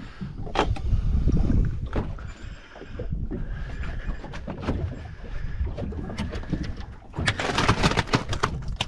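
Wind rumbling on the microphone with a few scattered knocks as a fish is handled. Near the end comes a burst of crunching, rattling ice as fish are pushed down into an esky packed with ice.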